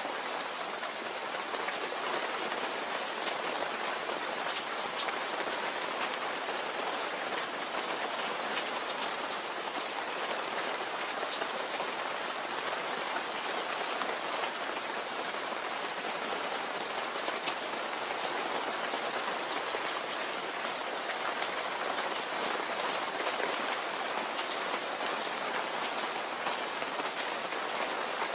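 Steady rain, with many individual drops ticking on a surface.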